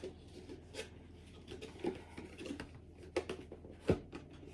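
A few faint, scattered clicks and taps from small objects being handled, the sharpest one near the end, over a low steady hum.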